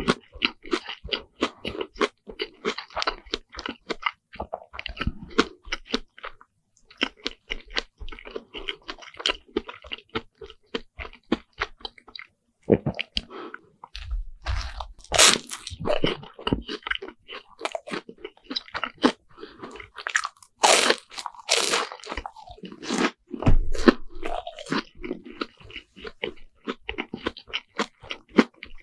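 Chewing and crunching of deep-fried sandwich bread (fried Lunch Pack), a steady run of crisp crackles, with a few louder crunchy bites in the second half.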